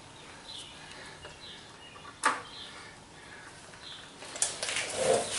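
Screws being snugged up on a mill's DRO scale mount: a sharp metallic click about two seconds in and light clinking of metal parts near the end. Faint short bird chirps sound in the background.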